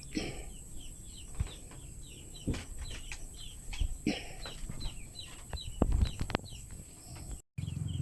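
A flock of young chicks peeping: many short, falling chirps over one another, with a few sharp knocks among them.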